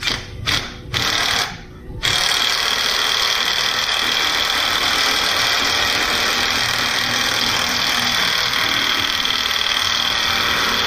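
A cordless power tool drives the center screw of a harmonic balancer puller on an LS truck engine's crankshaft. It gives four short bursts in the first two seconds, then runs steadily for the rest, pushing the balancer off the crank snout.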